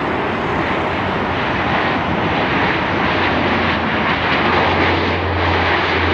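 Dash 8 turboprop airliner's engines and propellers during the landing rollout: a loud, steady rush with a low propeller drone that grows stronger about four seconds in.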